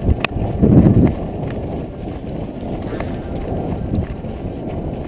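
Wind buffeting and handling rumble on an action camera's microphone, swelling about a second in, with a couple of sharp clicks.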